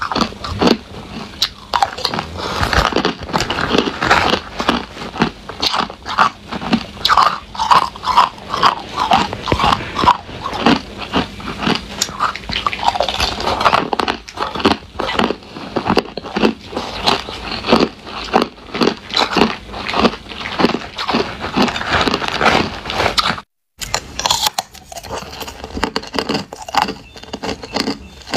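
Crushed clear ice being crunched and chewed between the teeth, close to the microphone: rapid, irregular crisp crunches one after another. The sound breaks off for a moment about 23 seconds in, then the crunching goes on.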